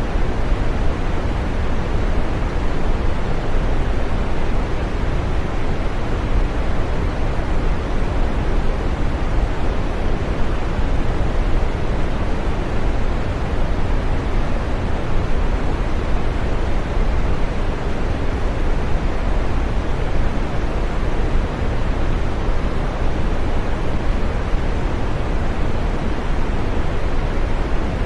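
Continuous green noise: a steady, unchanging hiss with most of its weight in the low and middle range, thinning out toward the high end.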